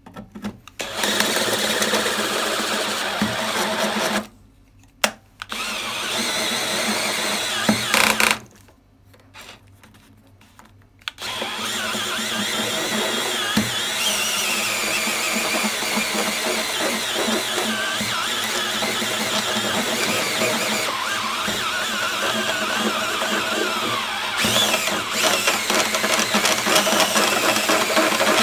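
Cordless DeWalt drill with a step drill bit cutting a hole through a sheet-metal plate, running in three spells: a few seconds at first, a short second spell after a pause, then steadily from about eleven seconds on.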